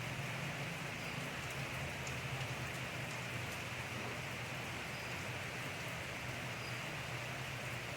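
Steady rain falling, an even hiss with scattered faint drop ticks over a low steady rumble.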